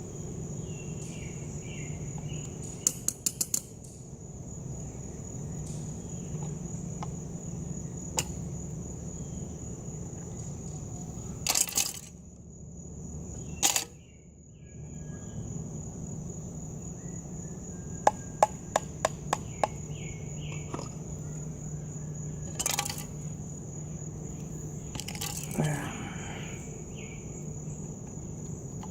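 Steady high-pitched insect chirring, like crickets, with a low hum beneath. Runs of sharp clicks and several single knocks, typical of tools working at a battery casing. The chirring drops away for a couple of seconds near the middle.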